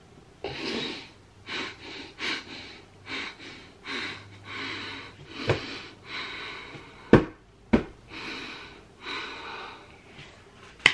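A man stifling laughter, letting out about a dozen short, noisy puffs of breath. Two sharp clicks a little past the middle, half a second apart, are the loudest sounds.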